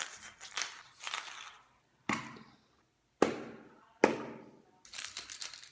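Three sharp, loud hits, each dying away over about half a second, with rustling noises before and after.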